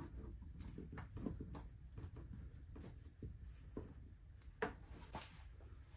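Faint scrapes and light taps of a small hand tool working glue around a drain tube in a sheet-metal cabinet floor, with one slightly louder knock about four and a half seconds in.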